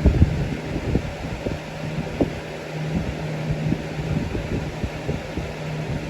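Air King model 9900 box fan running on its replacement motor: a steady motor hum under the rush of air. Irregular low thumps come from the fan's airflow buffeting the microphone.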